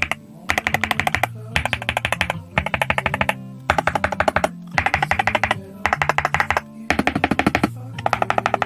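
Fast typing on a BOYI GMK67 gasket-mount mechanical keyboard: dense runs of key clicks in short bursts about once a second, over background guitar music.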